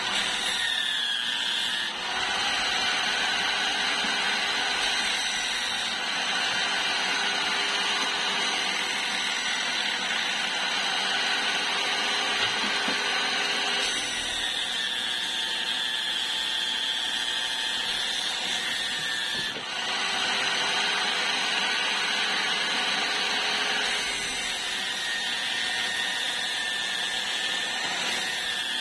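Sanding disc on an electric motor running with a steady whine while the edge of a wooden board is pressed against it, the whine shifting in pitch as the pressure changes, with a few brief dips.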